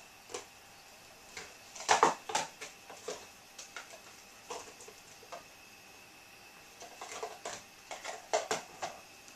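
Marker scribbling on a whiteboard: quick back-and-forth colouring strokes, each a short rubbing squeak, coming in bunches with the busiest about two seconds in and again near the end.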